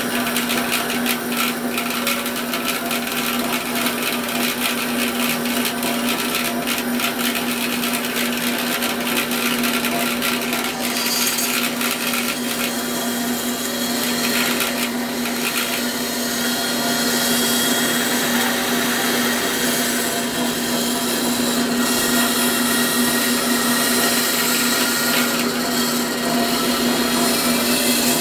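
Electric bandsaw running steadily, with a strong motor hum under the whirring, rattling noise of the blade.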